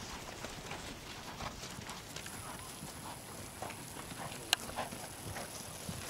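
Hoofbeats of a horse trotting on grass, with a single sharp click about four and a half seconds in.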